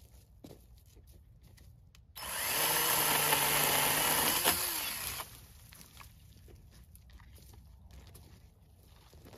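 Cordless battery chainsaw running and cutting through a peach tree limb for about three seconds. It starts abruptly about two seconds in and winds down as it stops.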